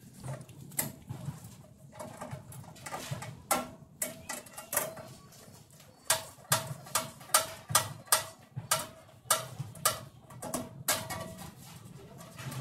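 Metal tool clinking and tapping against the steel parts of a rice mill during repair work: a string of sharp metallic clicks, each with a short ring, coming about twice a second in the second half.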